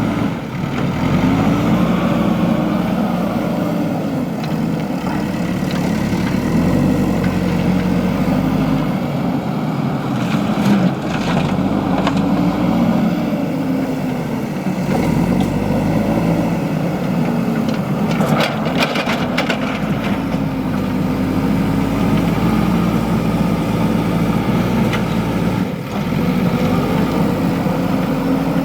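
Diesel engine of a JCB 3DX backhoe loader working, its pitch rising and falling again and again as the machine takes load, with a few short sharp clatters around the middle.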